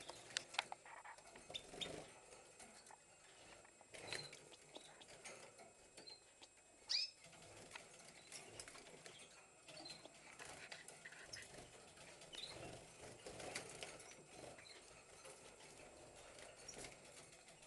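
Faint scuffling and wing flutter of a caged European goldfinch handled on its sand floor, with soft clicks and a few brief, faint chirps; one sharper chirp about seven seconds in.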